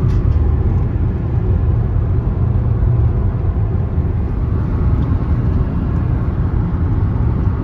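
Steady low rumble of a car driving along, heard from inside the cabin: road and engine noise.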